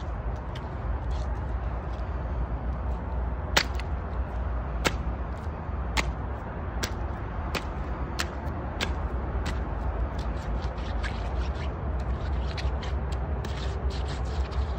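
Wooden-soled clogs treading on cucumbers and a bell pepper on wet concrete: a run of sharp cracks and crunches about one a second through the middle, then a patter of smaller clicks and squishes near the end, over a steady low rumble.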